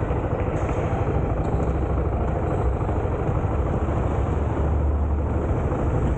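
A vehicle running steadily: a constant low rumble under an even noise, with no sharp changes.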